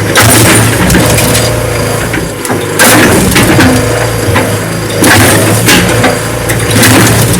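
A lawnmower being crushed by a heavy machine: crunching and cracking of its body breaking up, swelling about three seconds in and again near five seconds, over the steady hum of the machine's diesel engine.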